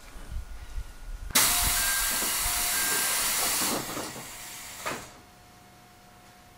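Compressed air hissing loudly on a JR 373 series electric train, starting suddenly and running for about two and a half seconds before fading, with a short final puff near the end. A few low knocks come before it.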